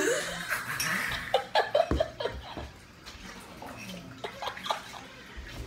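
A boy laughing in short, breathy bursts after the cinnamon challenge, with a rushing, breathy noise in the first second or so.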